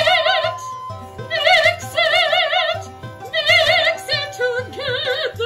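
A soprano singing operatically in short phrases with wide vibrato.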